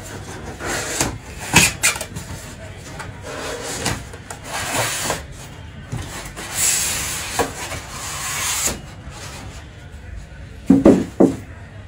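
Large cardboard TV carton being opened and handled: irregular scraping and rubbing against the cardboard with a few clicks, then two loud knocks in quick succession near the end.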